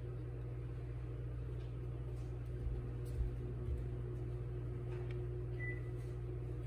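Steady low electrical hum of room tone, with a few faint soft knocks near the middle.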